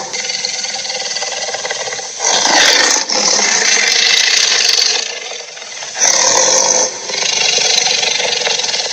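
Harsh, rasping monster-growl sound effect, coming in long rough stretches broken by short dips.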